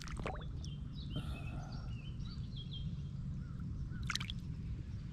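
Small splashes and drips as a hand lets a small largemouth bass go in shallow water, with a short splash near the start and another about four seconds in. Birds chirp faintly over a steady low outdoor rumble.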